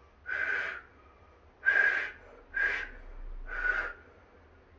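A person blowing a loud, breathy whistle in four short blasts. Each blast holds a single steady pitch inside a strong rush of air, with brief gaps between them.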